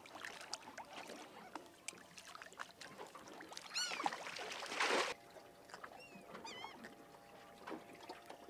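Seabirds calling overhead: one call about four seconds in and two shorter calls a couple of seconds later, over water sloshing beside the boat. A rush of noise, the loudest thing here, cuts off suddenly about five seconds in.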